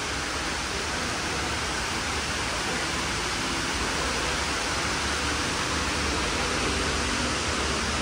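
Steady rushing of water from a four-storey indoor waterfall, an even wash of noise with no break.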